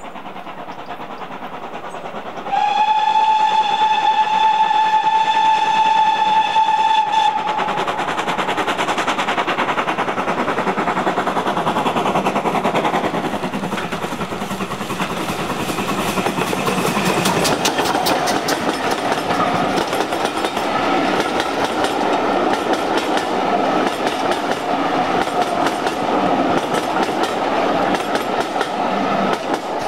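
A steam locomotive's whistle gives one long blast, starting about two and a half seconds in and lasting about five seconds. Then the train runs past with a loud, rapid clatter, and a wavering ringing tone runs through the second half.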